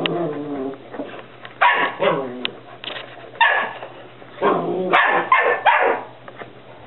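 Whippet puppies barking and yipping during rough play, in repeated bursts of short, high calls.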